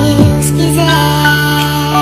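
Music: sustained held tones with a quick downward pitch slide about a quarter second in and a short melody line above.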